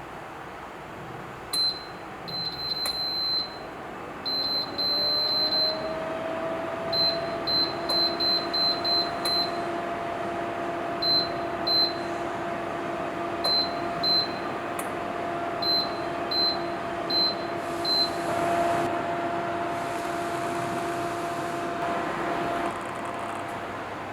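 Electric wall-mounted bathroom heater being operated: its controls give a string of short high beeps as settings are changed. Its fan motor spins up with a rising hum in the first few seconds, runs steadily with a rush of air, and shuts off near the end.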